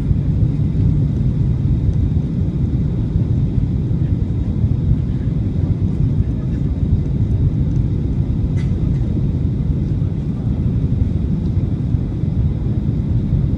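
Steady low rumble inside the cabin of a Boeing 737-800 on approach, with flaps extended: the sound of its CFM56 engines and the airflow over the airframe heard from a window seat.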